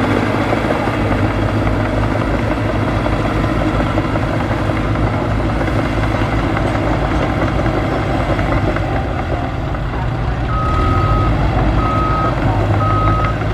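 Heavy diesel machinery engine running steadily under load, with a reversing alarm sounding three long beeps near the end as a machine backs up.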